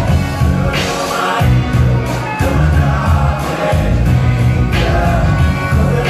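Live band playing loud amplified music with a singer, over a steady drum beat and heavy bass.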